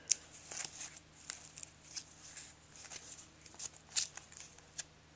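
Trading cards being handled and flipped through by hand: soft slides and scattered light clicks of card stock, the sharpest just after the start and another about four seconds in.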